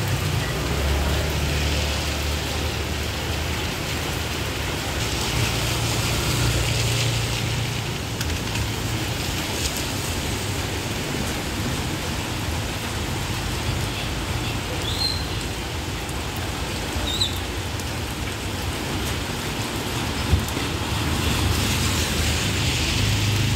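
Steady rain falling and pattering on wet pavement and canvas awnings, an even hiss with a low hum coming and going beneath it.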